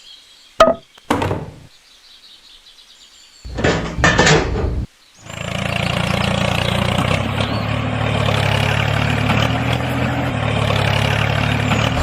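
A few short knocks, then a louder burst of noise, then an engine starts running steadily about five seconds in and keeps going.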